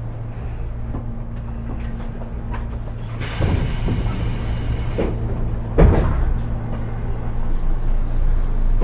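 Inside a Tobu 10030-series electric train car standing still: a steady low hum of the car's equipment, then about three seconds in a hiss of air as the passenger doors are worked, and a single heavy door thump just before six seconds in.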